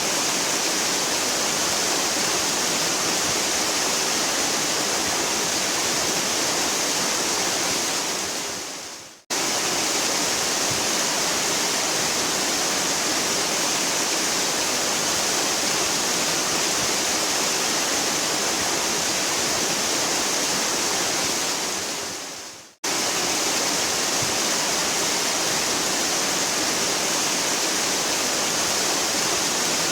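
Heavy waterfall, a steady rush of falling water with a bright hiss. Twice, about a third of the way in and again about three quarters through, it fades away over about a second and then cuts abruptly back in.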